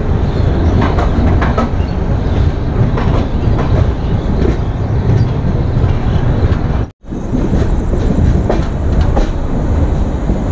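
LHB passenger coach running on the rails, heard from the open doorway: a steady low rumble of wheels on track with scattered clicks over rail joints. The sound cuts out for a moment about seven seconds in, then the running picks up again.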